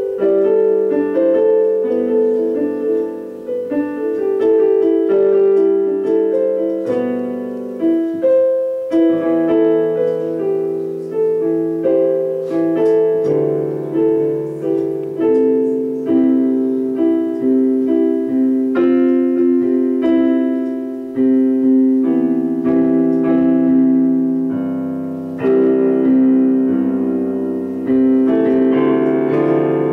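Slow piano music: single notes and chords struck and left to ring, a new note or chord every second or two.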